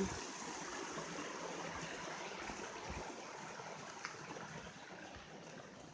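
A stream running: a steady rush of flowing water that slowly grows fainter.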